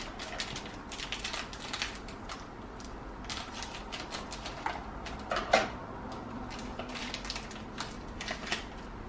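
Crinkling and crackling of a snack wrapper as it is handled, snipped with scissors and pulled open: a run of small irregular crackles, the loudest a little past halfway.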